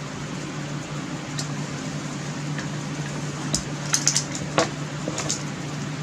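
Paracord and pistol crossbow being handled: a few light clicks and rustles, bunched together from about three and a half seconds in, over a steady low hum.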